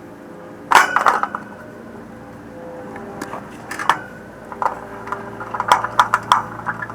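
Sharp clicks and metallic clinks of tools and parts being handled while an air conditioner's compressor start kit is wired in, over a steady hum. There is a cluster about a second in and more between about three and six seconds in.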